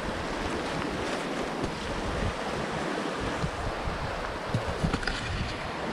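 Wind buffeting the microphone over a steady rushing hiss, with a few faint knocks near the end.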